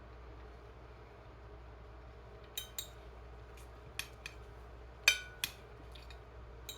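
Cutlery clinking against a plate during eating: a scatter of light clicks and taps, the loudest about five seconds in with a brief ring.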